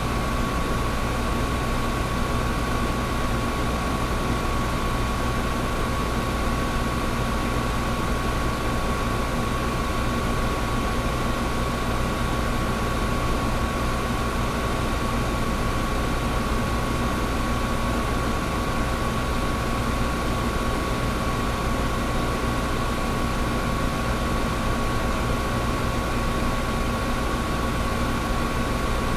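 Old window air conditioner running steadily: a constant whoosh of fan air over a low compressor hum, with a thin steady whine on top.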